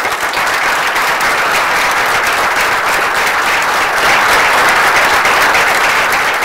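An audience applauding: dense, steady clapping from a roomful of people.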